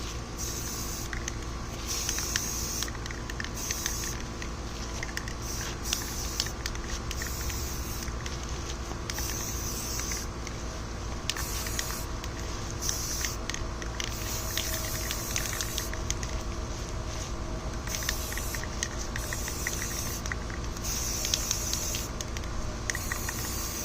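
Aerosol can of Rust-Oleum Camouflage flat green spray paint hissing in about a dozen short bursts as a coat is sprayed on, over a steady low hum.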